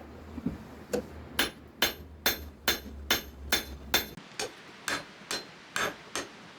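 Small hammer striking a spring-steel dagger blade being forged, about two blows a second with a bright metallic ring. The blows start about a second in.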